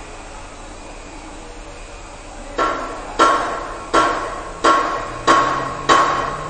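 Steady hiss, then from about two and a half seconds in, metal being hammered: six blows in an even rhythm of about one and a half a second, each one ringing and dying away.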